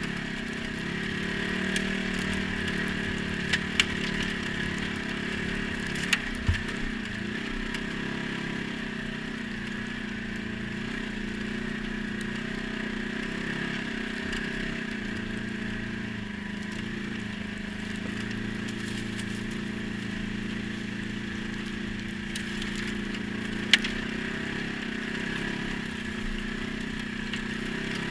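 ATV engine running at a steady speed, with a few sharp knocks: two close together about four seconds in, two more around six seconds in, and one near the end.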